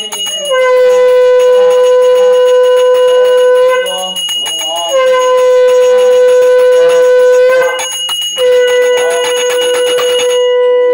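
Conch shell (shankha) blown in three long, steady blasts with short breaks between, as is done during a Hindu puja. A small handbell rings alongside.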